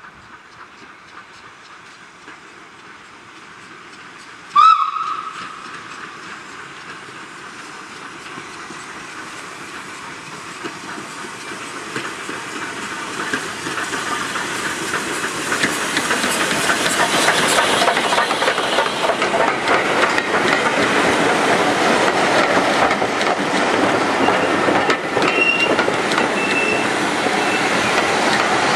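Ivatt Class 2MT steam locomotive giving a short whistle blast about five seconds in. Then the train comes closer, its steam hiss and running noise growing steadily louder until about eighteen seconds in and staying loud after that.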